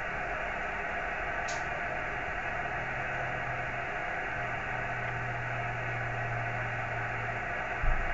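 Amateur radio receiver's steady static hiss, cut off above the voice range, with a low hum underneath; a short thump near the end.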